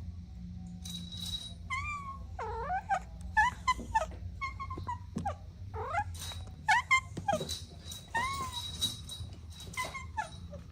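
Kittens mewing: a rapid string of short, high, bending cries, many close together, over a low steady rumble.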